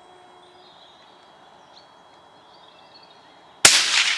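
A single 6mm BR rifle shot, a sharp crack about three and a half seconds in, followed by its echo dying away. Before the shot there is only faint open-air background.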